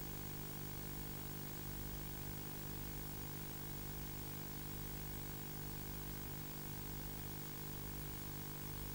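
A steady, unchanging low hum with an even hiss over it.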